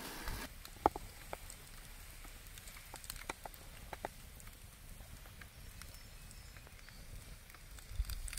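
Wood campfire crackling, with scattered sharp pops, the loudest about a second in. A low rumble runs underneath, and there is a dull thump near the end.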